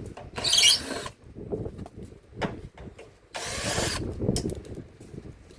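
Two short bursts of mechanical tool noise with scattered knocks and clicks, from work on a washing machine's drain hose.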